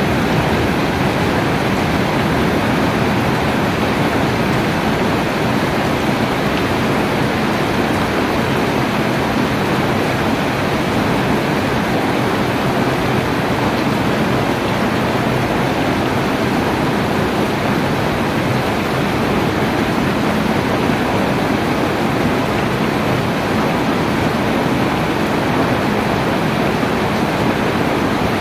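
Heavy rain falling steadily: a dense, even hiss, with no single drops or thunder standing out.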